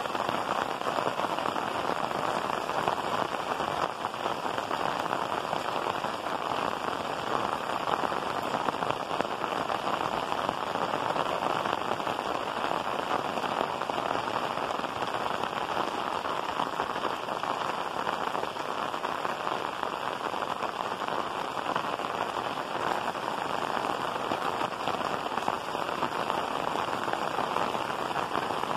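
Heavy rain pouring onto clay tile roofs, a steady, even hiss that doesn't let up.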